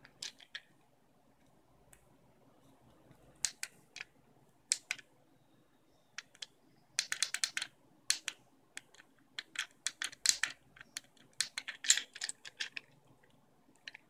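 Plastic fidget cube's controls clicked under the thumb: sharp clicks in short, irregular runs separated by pauses, with a fast burst of clicks about seven seconds in and denser clicking through the second half.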